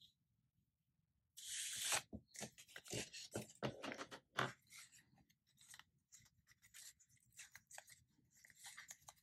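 Paper being handled and worked by hand: a loud rustle about a second and a half in, then a string of small crinkles, scrapes and taps.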